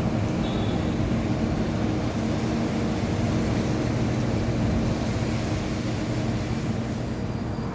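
Steady low mechanical drone: a hum of several low tones over a wash of rumbling noise, unchanging throughout.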